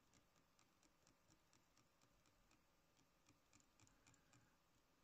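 Near silence: quiet room tone with faint, irregular small ticks.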